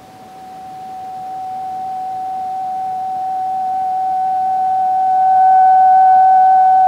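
A single steady pure tone with a fainter overtone an octave above, swelling louder over about five seconds and then holding, over the hiss of a microcassette tape.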